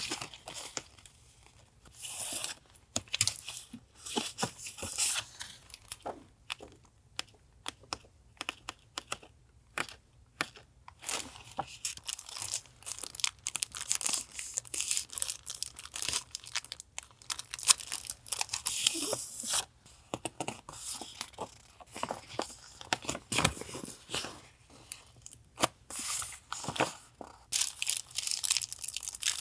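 Paper and packaging being handled by hand: crinkling, rustling and tearing in irregular bursts, with small clicks and taps between them.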